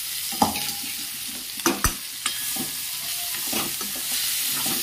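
Boiled moong beans being stirred into sizzling spiced oil in a cooking pan: a steady sizzle, with the spoon knocking and scraping against the pan a few times.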